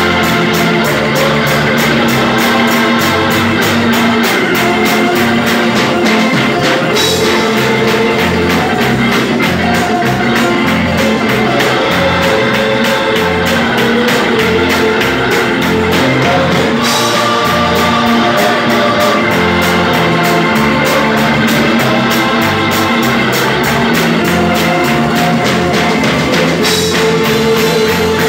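Live gospel music played by a church band: electric organ chords over a drum kit and bass, with voices singing.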